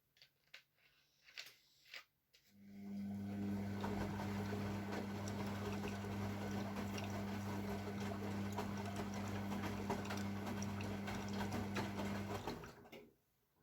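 AEG Lavamat W 1450 washing machine: a few light clicks, then a steady low electrical hum with water rushing that starts about two and a half seconds in and cuts off about a second before the end.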